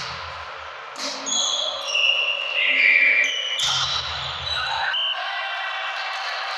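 A volleyball being struck and bouncing on a sports-hall floor during play, with thuds at the start, about a second in and about three and a half seconds in, among short high squeaks.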